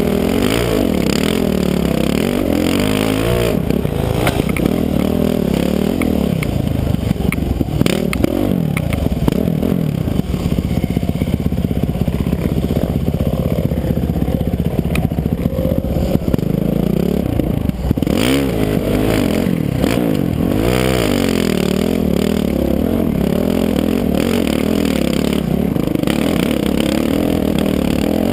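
Dirt bike engine running under load off-road, revs rising and falling again and again as the throttle opens and closes, with clattering and occasional knocks from the bike on the rough ground.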